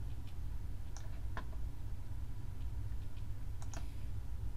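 A few short computer mouse clicks over a steady low hum.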